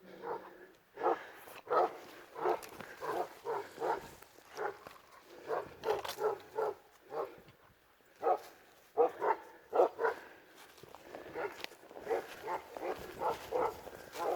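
Kangal and Dogo Argentino cross hound barking on bay at a wild boar, in quick runs of several deep barks with a short pause a little past halfway.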